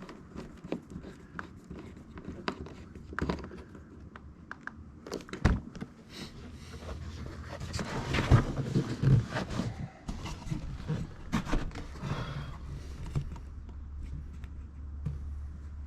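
Scattered clicks and knocks of car door trim and switch parts being handled, loudest around the middle, with a low steady hum coming in about ten seconds in.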